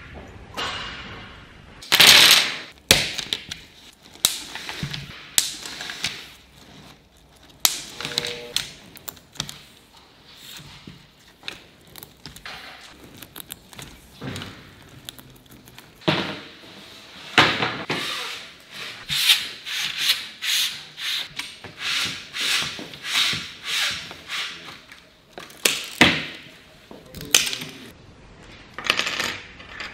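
Gloved hands rubbing and sliding over pleated screen mesh and aluminium frame profiles on a worktable, a string of short scraping strokes. Louder strokes come about two seconds in and again near the end, with a quicker run of about one and a half strokes a second in the second half.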